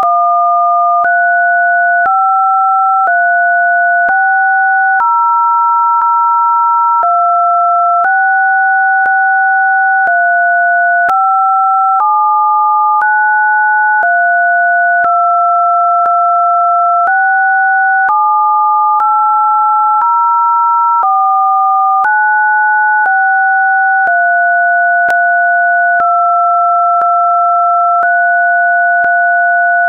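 Two electronic sine-wave test tones sounding together, one lower and one higher, each jumping to a new steady pitch about once a second, with a faint click at every jump.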